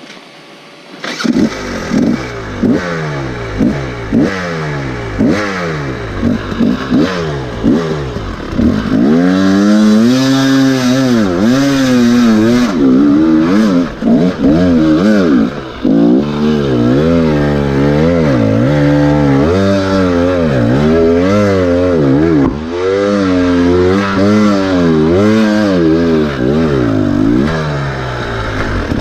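Husqvarna TE300 two-stroke dirt bike engine revving up and down over and over as the throttle is worked. It is quiet for about the first second, then from about nine seconds in it is held at higher revs with brief dips.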